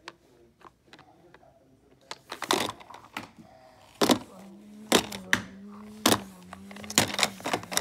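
Handling noise from a plastic toy and a phone held against the body: light ticks, then a series of sharp knocks and rubs from about two seconds in, with a steady low hum starting about halfway through.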